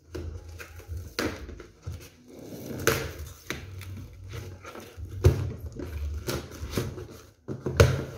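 Wrapping on a gift package crinkling and rustling in irregular bursts as it is handled and opened by hand.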